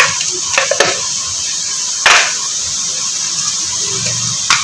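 Sliced onions frying in hot oil in a steel pot: a steady sizzle. A sharp knock about two seconds in and a smaller one near the end.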